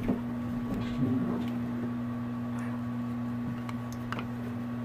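A steady low electrical hum, with a few light clicks and knocks: one at the start, a couple about a second in, and another near the end.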